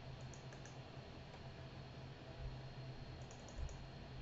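Faint clicking of a computer mouse in two short runs, about half a second in and again about three seconds in, over a low steady hum.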